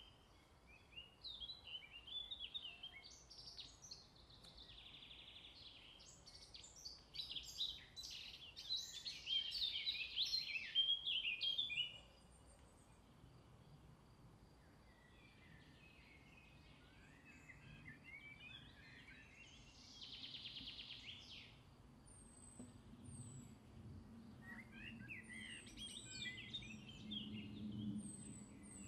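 Small birds singing and chirping in bouts. The busiest, loudest stretch ends about twelve seconds in, with more chirping later and a few short, high, thin notes near the end.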